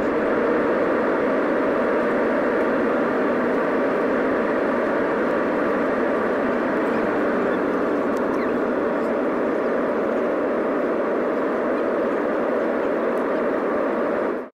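Jet airliner cabin noise during take-off, heard from inside the cabin: a loud, steady rush of engine and airflow. It cuts off suddenly near the end.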